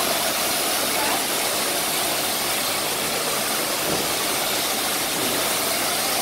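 CEMSA PWF fixed industrial high-pressure washer running, its 4 kW electric motor and piston pump driving a steady high-pressure water jet from the steel lance, heard as an unbroken rushing spray.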